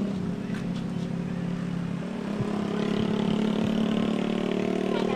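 Vehicle engine running steadily, getting a little louder about two and a half seconds in.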